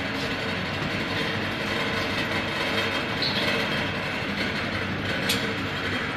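Nut roasting and processing line machinery running: a steady mechanical rattle and rumble. There is a brief high squeak about three seconds in and a sharp click near five seconds.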